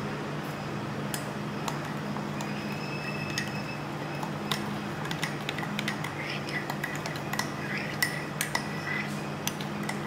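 Metal teaspoon clinking and tapping against a ceramic mug while sugar is stirred into milky coffee, the taps coming more often in the second half. A steady low hum runs underneath.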